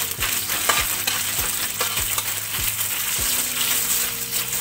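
Sliced chillies, shallots, garlic and lemongrass sizzling in hot oil in a wok while a spatula stirs them, scraping against the wok a little under twice a second.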